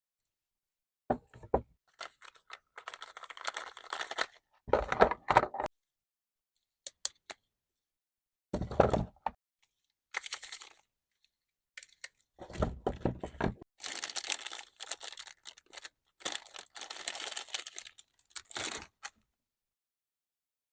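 Plastic candy wrapper being torn open and crinkled by hand in separate bursts, with sharp cracks and snaps among them.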